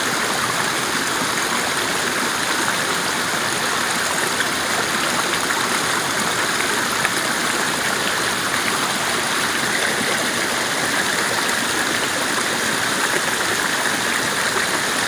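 Shallow rocky stream running fast over and around boulders: a steady, even rushing of water.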